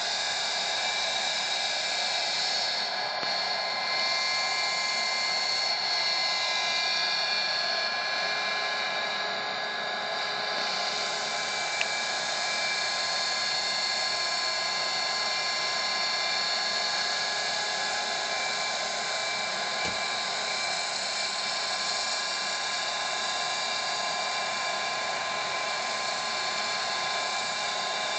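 Radio-controlled model helicopter's small gas turbine engine running in flight: a steady high-pitched whine of several held tones over a hiss. A single brief click about twelve seconds in.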